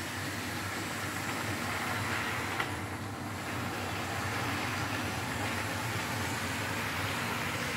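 Model electric train hauling double-deck coaches along the layout track: a steady whir of the locomotive's motor and running noise of wheels on the rails, with one brief click about two and a half seconds in.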